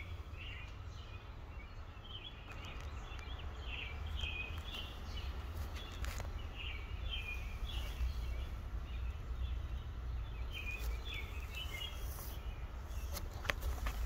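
Outdoor backyard ambience: songbirds chirping and twittering on and off in the background over a steady low rumble.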